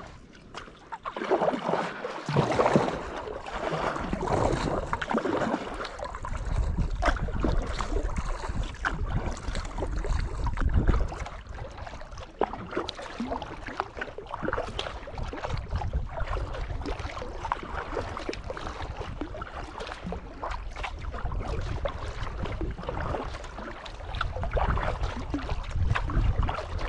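Sea kayak paddling: paddle blades dipping, with water splashing and dripping around the hull, and wind rumbling on the microphone.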